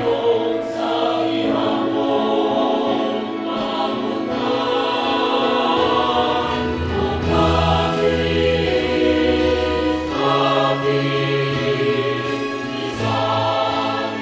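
Choir singing a song about Capiz, lyrics in the local language, over a sustained accompaniment whose chords and bass notes change every few seconds.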